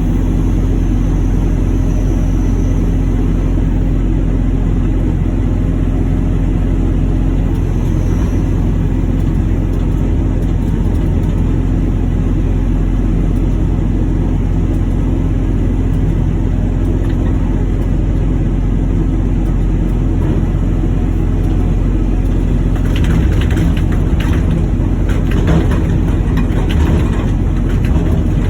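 Steady low drone of a gasification incinerator's burner and blower running, with a constant hum. Near the end, irregular clicks and rattles come over it.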